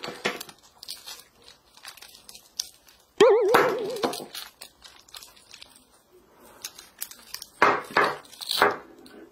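Wooden caterpillar toy train cars being pulled apart and handled: hook-and-loop fasteners ripping open, with light clacks of wood. A brief warbling tone about three seconds in, and the loudest rips near the end.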